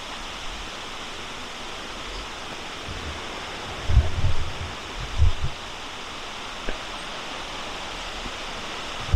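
Creek water rushing steadily over rocks. A few short low thumps stand out above it, about four seconds in, just after five seconds, and at the very end.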